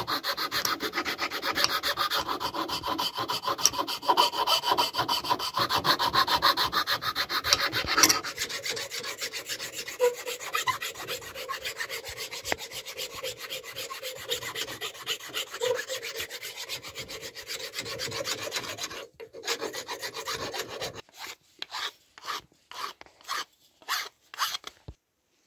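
Steel hand files rasping back and forth over a wooden knife handle, first a flat file, then a round file, in quick continuous strokes. Near the end the strokes slow into a handful of separate scrapes with short pauses between them.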